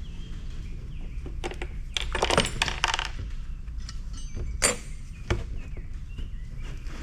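Small metal and plastic parts of a cooler being taken apart clinking and clattering as they are handled and set down: a quick cluster of clinks about two seconds in, and single sharp knocks later, over a low steady rumble.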